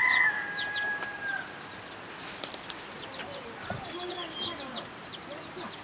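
A rooster's crow, its long held note trailing off about a second and a half in. Then a run of quick, high, short chirps from small birds, with a low hen-like cluck among them.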